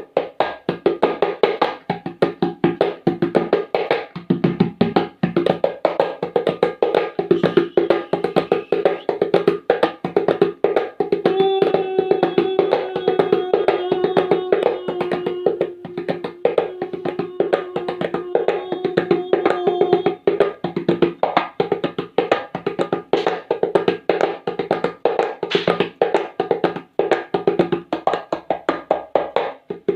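Percussion playing a fast, driving rhythm of rapid strokes that imitates a train running. A steady held note sounds over the drumming from about eleven seconds in until about twenty seconds in.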